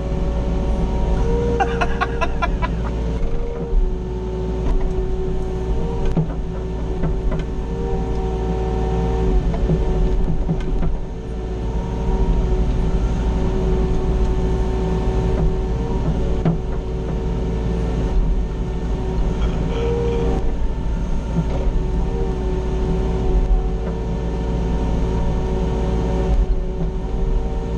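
Mini excavator running, heard from inside its cab: a steady engine rumble with a hydraulic whine whose pitch steps up and down now and then as the machine works.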